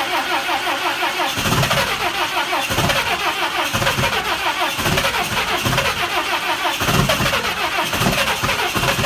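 Cummins 24-valve inline-six diesel cold-starting: a fast rhythmic cranking churn, with uneven deep exhaust pulses from about a second and a half in as the cold engine begins to fire and catch.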